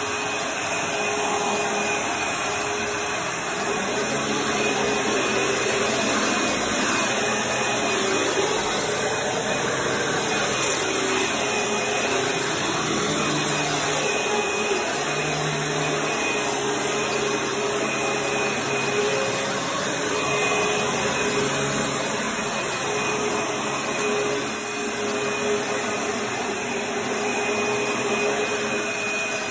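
Dirt Devil Breeze upright vacuum cleaner running steadily: a continuous motor whine and airflow noise as it is pushed back and forth over carpet and bare wood floor, with the lower hum shifting slightly now and then.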